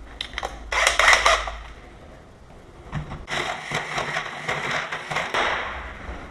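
Power drill with a hole saw boring into the wooden edge of a door, in two runs: a short one about a second in, then a longer one from about three seconds in until near the end.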